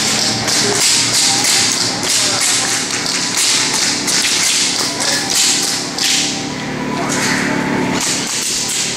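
A run of quick, sharp taps and thumps, several a second and irregular, over a steady low hum.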